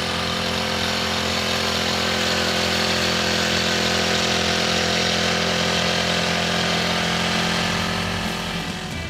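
Honda FG110 mini tiller's small four-stroke engine running steadily. It starts abruptly and eases off slightly near the end.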